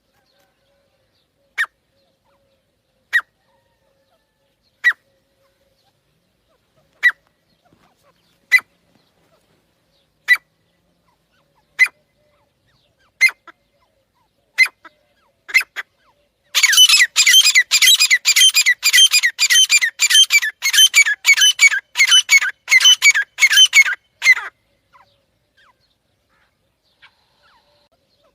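Pair of grey francolins (teetar) calling: a single sharp, high note about every one and a half seconds for some fifteen seconds, then about eight seconds of fast, dense, overlapping calling that stops suddenly.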